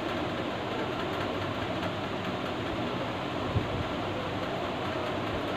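Steady background room noise, an even hiss with a low hum, and one light tap a little past halfway.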